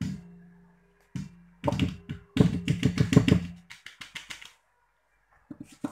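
Flour being sifted through a plastic sieve shaken and knocked against a stainless steel mixing bowl, which rings at each knock. There is a single knock at the start and another about a second in, then a quick rattling run of knocks, with a few more near the end.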